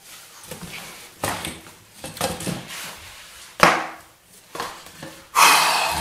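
Bumps, knocks and rustling of a person getting up and moving a woven wicker-style chair. There is a sharp knock about three and a half seconds in and a louder, longer noise near the end.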